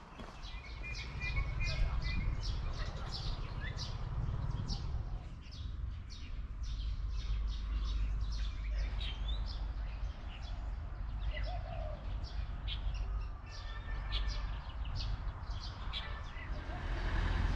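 Birds chirping over and over, many short high chirps, over a steady low rumble.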